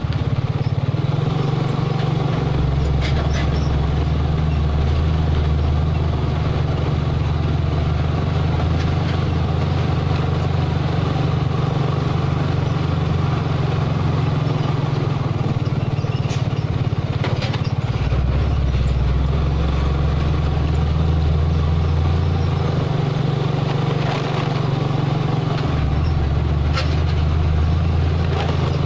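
Mitsubishi Fuso 220PS truck's diesel engine running steadily as the loaded truck drives on a gravel road, its low engine note shifting several times, with tyre noise and a few sharp clicks from gravel.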